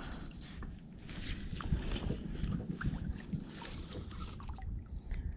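Wind rumbling and gusting on the microphone, over water lapping against the hull of a plastic sit-on-top kayak drifting at sea.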